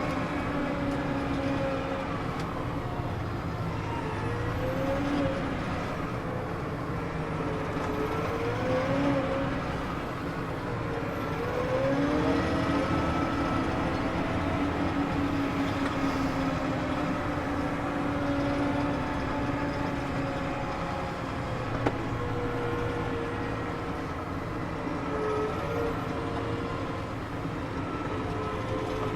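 New Holland T7.315 tractor's six-cylinder diesel running under load, its engine pitch rising and falling several times as the revs change. A single sharp click about two-thirds of the way through.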